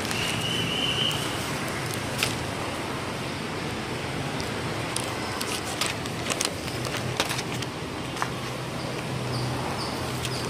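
Newspaper pages crackling and rustling as they are handled and turned, with scattered sharp clicks over a steady background hum and noise.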